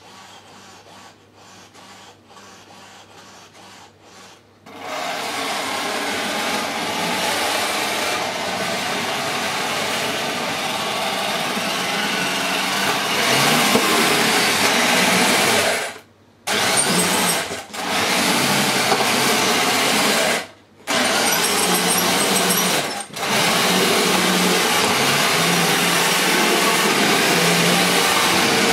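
Electric drive motors and gearing of a homemade radio-controlled puppet running steadily as it moves. The noise starts abruptly about five seconds in and cuts out for a moment four times in the second half, as the motors are switched off and on by radio.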